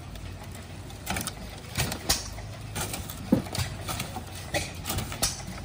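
Hand-cranked fodder cutter chopping dry corn stalks: irregular sharp snaps and clicks, about one or two a second, as the crank turns and the blades cut through the stalks.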